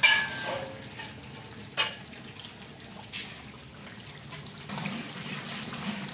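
Large aluminium pot of mutton korma with potatoes bubbling as it simmers, with a couple of sharp clicks and a slightly louder stretch of sloshing near the end.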